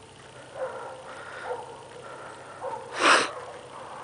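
A dog whining faintly three times in short high notes, then a single short, loud snort about three seconds in.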